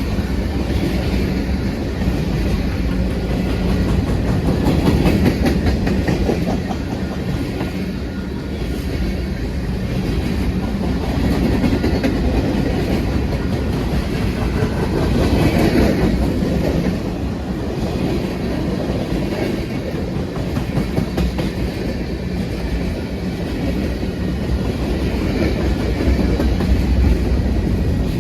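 Freight train cars rolling past, wheels clattering over the rail joints over a steady rumble.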